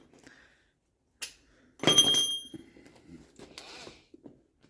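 A sharp metallic clank about two seconds in that rings briefly at a high pitch, with a lighter tap before it and softer knocks and handling of metal tools after, as a socket and impact wrench are fitted to the hub nut.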